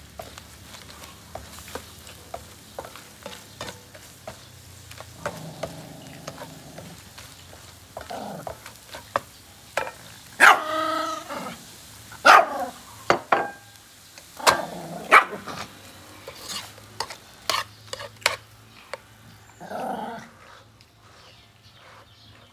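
A spatula clicking and scraping in a frying pan of cooking shrimp, with several short, loud animal calls in between, the loudest near the middle.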